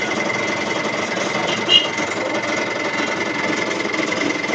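Steady machine hum with a constant high whine, broken by one brief sharp high-pitched sound a little under two seconds in.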